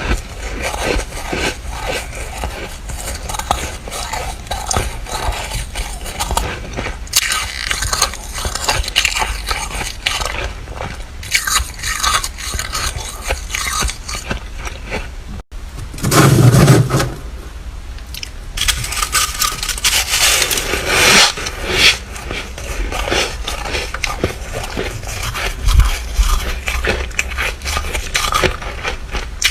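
Freezer frost being scraped and crunched close to the microphone: dense, crackly scraping and bites of flaky frost. About halfway there is a sudden break, followed by a loud, dull crunch.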